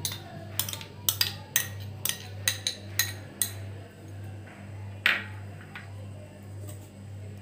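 A steel spoon tapping against a glass bowl to knock out thick spice paste: about nine sharp clinks in the first three and a half seconds, then one louder knock about five seconds in. A low steady hum runs underneath.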